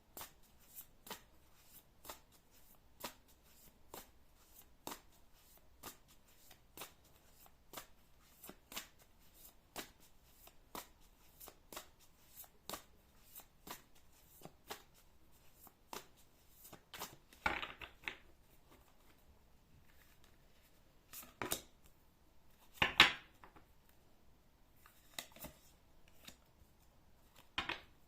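A deck of oracle cards being shuffled by hand: soft card slaps roughly once a second, then a few louder card riffles and rustles in the second half, the loudest about 23 seconds in.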